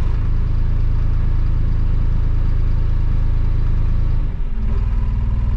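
Fendt Vario tractor's diesel engine running steadily, its engine speed changing as a stored RPM setting is recalled from memory: the engine note shifts right at the start and again about four seconds in.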